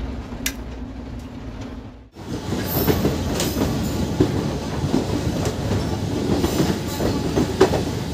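Passenger train moving along a station platform, heard from an open coach door: wheels rumbling with irregular clacks over the rail joints. It begins about two seconds in, after a hard cut from a quieter steady hum.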